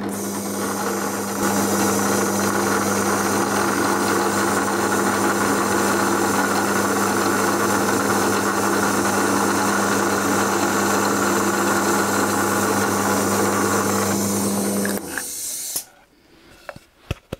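Power drill boring a hole in wood with a Forstner bit. The motor runs steadily with a constant hum for about fifteen seconds, then switches off and winds down. A few light knocks follow near the end.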